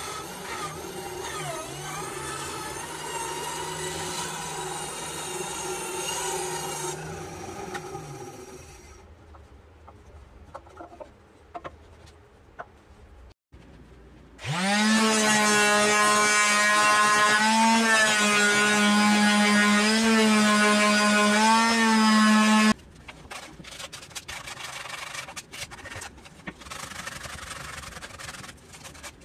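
Benchtop band saw running and cutting a curve in a wooden board for about the first seven seconds, then a few light clicks. About halfway through, a louder power-tool motor spins up with a rising whine, runs steadily for about eight seconds and cuts off abruptly, followed by rubbing and handling noises.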